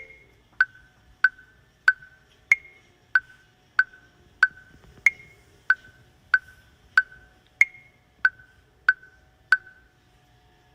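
Background music stripped down to a lone metronome-like tick, wood-block or mallet clicks about one and a half per second, with a higher-pitched accented click on every fourth beat.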